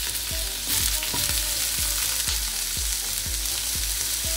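Food sizzling in hot olive oil in a frying pan, a steady crackling hiss, with a regular low beat about three times a second underneath.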